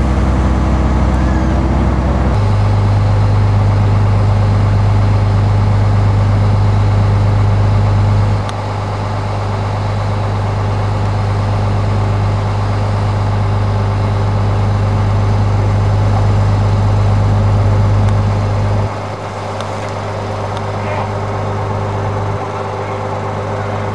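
Heavy engine running steadily with a loud low drone, its sound shifting about two seconds in and stepping down in loudness about eight seconds in and again near nineteen seconds.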